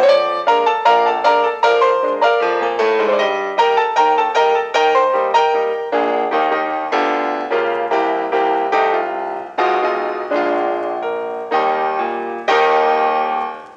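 Piano music playing quick struck notes, then slower chords from about halfway, dying away at the end.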